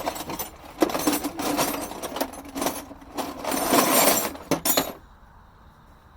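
Loose metal wrenches clattering and clinking as someone rummages through a bucket of them, with many sharp knocks, stopping about five seconds in.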